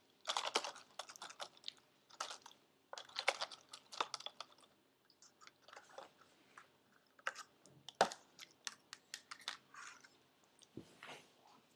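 Slime from a Kutsuwa Furufuru Slimy kit being squished and handled: bursts of small sticky clicks and crackles with short pauses between them.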